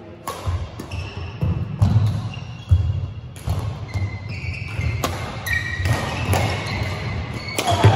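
Badminton doubles rally: rackets striking the shuttlecock with sharp cracks, players' shoes thudding on the court floor, and short high shoe squeaks near the middle.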